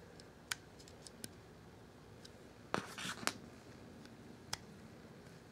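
Small steel parts of a Glock pistol frame clicking faintly as a part is worked in over its spring with a pin. A few light clicks, with a brief louder scrape and clatter about three seconds in.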